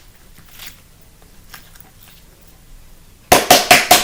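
A fast run of sharp knocks, about seven a second, starting about three seconds in, each with a short hollow ring: a slime container being banged to loosen stuck slime.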